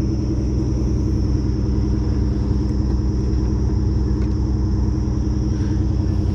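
Steady low engine drone, an idling motor running evenly without revving, with a faint steady high whine above it.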